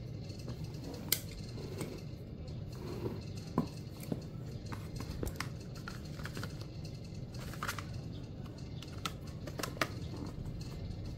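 White paperboard packaging of a tablet box being handled: scattered light taps, scrapes and rustles as the cardboard sleeve and box tray are opened and moved, over a steady low hum.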